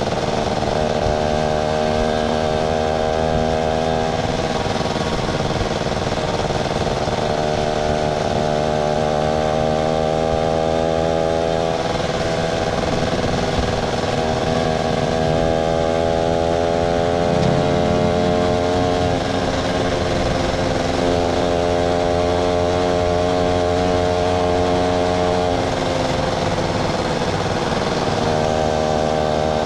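Yamaha SS motorcycle's small single-cylinder engine running steadily on the move, its pitch sinking slowly and rising again as road speed changes, over a constant rush of wind and road noise.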